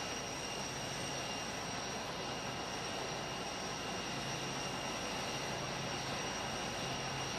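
Steady airfield din: a constant rushing roar with a thin high-pitched whine held at one pitch, typical of jet aircraft engines running on the apron.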